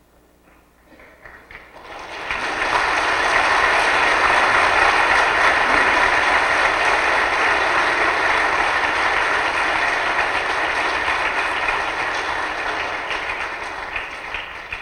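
A large congregation applauding. A few scattered claps build into steady applause about two seconds in, which thins back to separate claps near the end.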